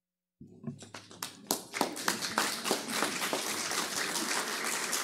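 Audience applauding: the sound cuts in abruptly about half a second in on scattered claps, which build within a second into steady applause with voices mixed in.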